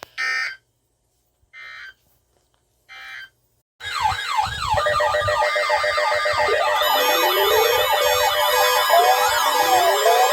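Three short electronic data bursts, typical of the EAS end-of-message code that closes a weather radio alert. About four seconds in, many overlapping electronic siren wails start and carry on loudly, rising and falling over steady tones.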